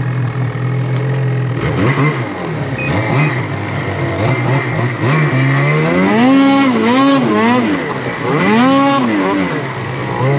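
Snowmobile engine running at a steady low idle, then revved up and down several times as the sled pulls out of deep snow onto the packed trail.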